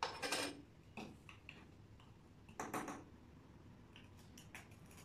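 Faint handling noises as baking soda is filled through a plastic funnel into a balloon: a few brief scrapes and taps, the clearest at the start and again about halfway through, with small ticks between.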